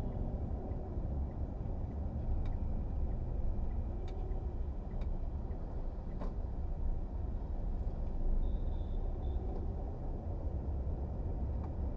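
Mercedes car driving, a steady low rumble of engine and road noise heard from inside the car, with a few faint ticks.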